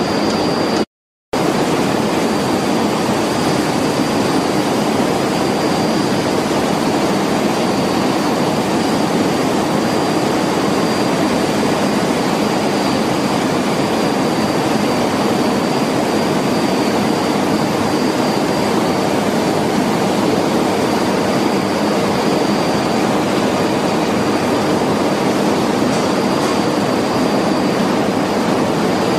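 Steady, loud machinery and air noise of a factory paint-shop hall, with a thin high whine held over it. It cuts out for a moment about a second in.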